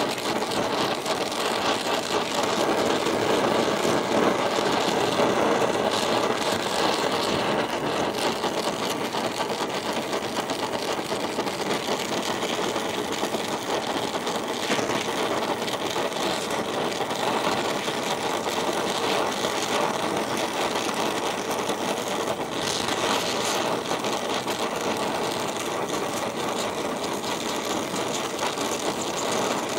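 Oxy-fuel torch flame hissing steadily while it heats a cracked cast iron casting for brazing.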